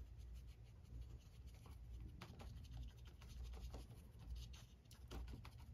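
Faint, irregular scratchy strokes of a flat paintbrush on paper as paint is brushed onto a landscape painting, over a low steady room hum.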